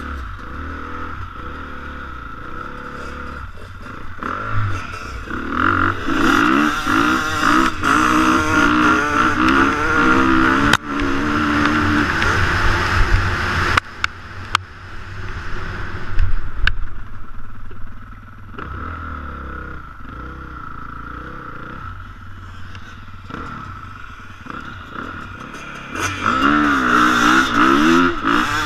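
Dirt bike engine revving and accelerating in bursts, its pitch climbing and dropping through the gears. It is loudest from about six to thirteen seconds in and again from about twenty-six seconds, and runs quieter in between.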